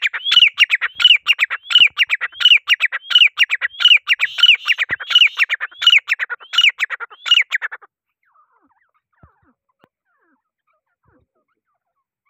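Grey francolin calling: a fast run of loud, high notes, each falling in pitch, several a second, that stops about eight seconds in.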